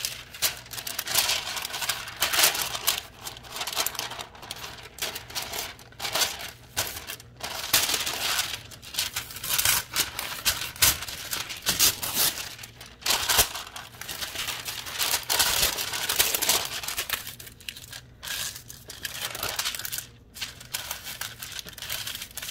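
Sheets of parchment paper being handled, crinkling and rustling irregularly as they are pulled out and laid flat, with some tearing.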